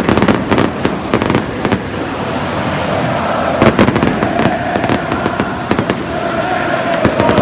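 Stadium fireworks going off in rapid clusters of sharp cracks and pops, with a loud cluster about halfway through, over a large crowd singing and cheering.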